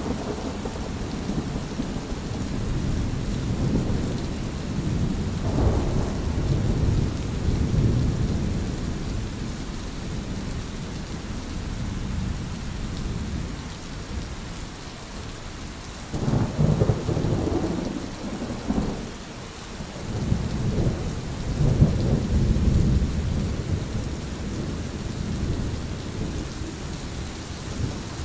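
Thunderstorm: rolling thunder rumbling in several low waves over a steady hiss of rain, with the loudest rolls a little past the middle.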